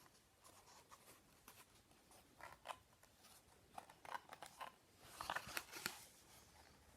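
Faint rustling and light clicks of paper manuals and a cardboard box being handled while they are packed back into the box, busiest about five to six seconds in.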